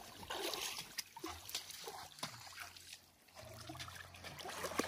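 Faint water trickling and light splashing with a few small knocks, as a wet fishing net is handled beside an inflatable boat.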